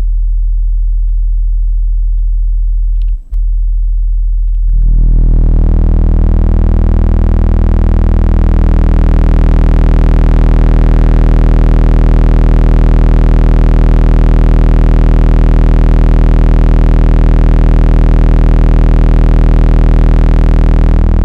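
SCAR subwoofers in a car's enclosure playing a steady 40 Hz bass tone with the windows closed. It drops out for an instant about three seconds in, then jumps louder about five seconds in and holds, buzzing with many overtones.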